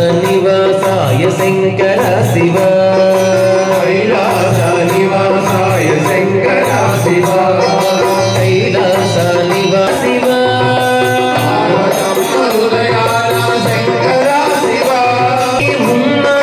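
Live Hindu devotional music: a two-headed barrel hand drum keeps a steady beat under an electronic keyboard playing held melodic notes.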